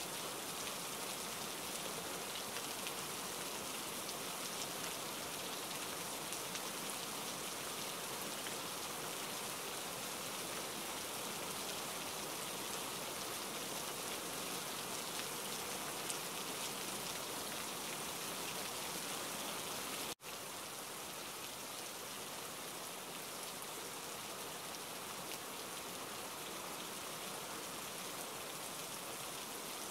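Steady rain falling, an even hiss of many drops. About two-thirds of the way through it cuts out for an instant and comes back slightly quieter.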